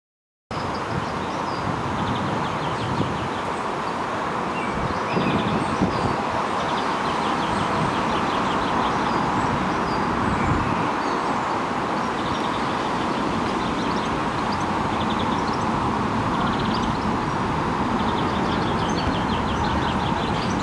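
Steady hum of background traffic in a park, with small birds chirping and trilling repeatedly over it.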